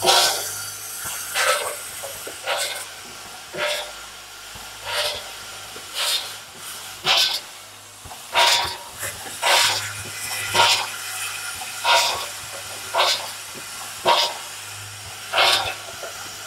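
Screw packaging machine running: its pneumatic cylinders let out a short hiss of air about once a second, over a steady low hum.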